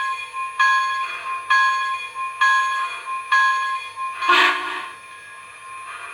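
Steam locomotive bell from a model Big Boy's sound decoder, rung five times about a second apart, followed by a short, loud burst of hiss about four seconds in; a faint hiss then carries on.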